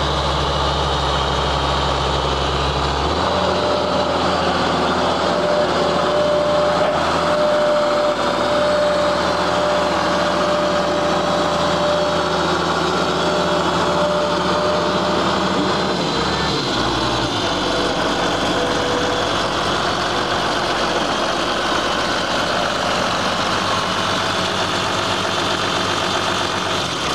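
1990 Case IH 7130 Magnum tractor's six-cylinder turbo diesel engine running steadily. Its low drone shifts about three seconds in and again around sixteen seconds in.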